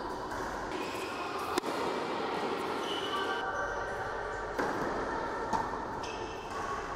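A tennis ball being struck by a racket and bouncing on an indoor hard court, echoing in the hall. One sharp hit comes about one and a half seconds in, and two softer ones come near the five- and six-second marks, over a steady hall noise.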